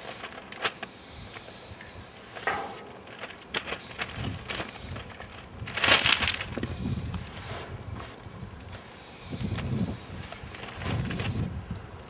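Aerosol spray paint can spraying in several hissing stretches of one to two seconds each, broken by short gaps between the strokes of a tag.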